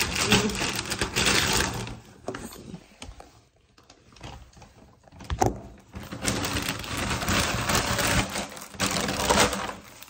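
Plastic poly mailer bag rustling and crinkling as it is torn open and handled, with a quieter stretch in the middle and a sharp click about five seconds in.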